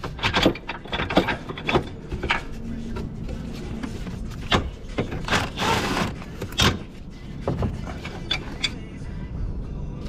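Hand and tools working an engine mount loose in a car's engine bay: scattered, irregular metallic clicks and knocks, with a brief rushing noise a little before the middle and a steady low rumble underneath.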